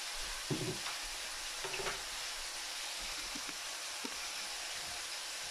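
Cubed pork sizzling steadily as it fries in a skillet, browning. A few light knocks come in the first two seconds.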